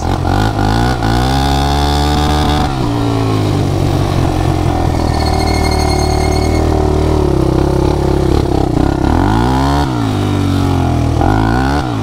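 Suzuki LT-Z400 quad's single-cylinder four-stroke engine under way. It revs up hard over the first couple of seconds and holds high revs, then drops and climbs again several times near the end. The engine, which would not stay running before its carburetor work, now pulls cleanly.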